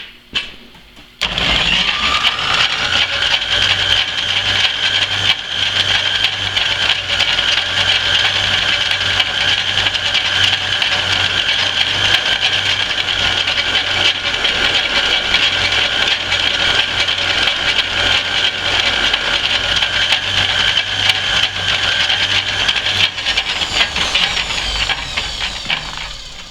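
Antique Rockford metal lathe started about a second in, its motor and gearing running with a steady whine and hum while it takes a boring cut in a steel part. It is switched off near the end and the pitch falls as it spins down.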